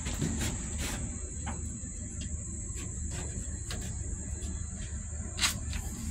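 Insects chirring in a steady, high-pitched trill, over a low rumble, with a few light clicks and one sharper click about five and a half seconds in.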